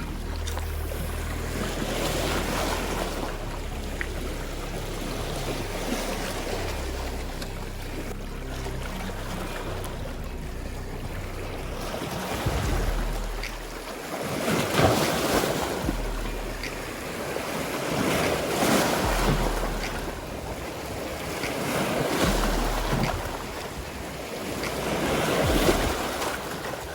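Sea waves washing against coastal rocks, swelling and falling back every few seconds, with wind buffeting the microphone.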